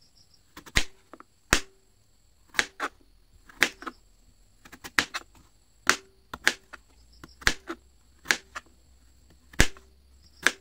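A knife chopping raw taro on a plastic cutting board: a string of sharp knocks as the blade cuts through and strikes the board, at irregular spacing of about one to two a second, some coming in quick pairs.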